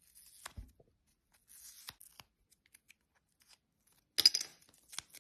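Adhesive fingerboard grip tape being peeled off the deck in three short ripping pulls, the loudest about four seconds in.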